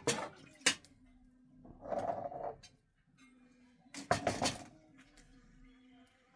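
A few sharp knocks and clatters of objects being handled, with a short scraping rustle about two seconds in.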